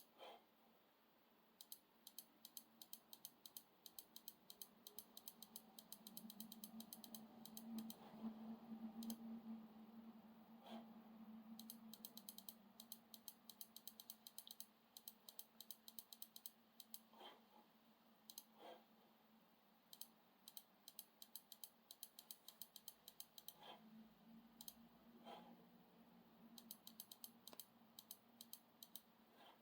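Faint, quick runs of light clicks from a laptop's keys or touchpad buttons being pressed repeatedly to step through BIOS settings, with a few heavier taps and a low steady hum underneath.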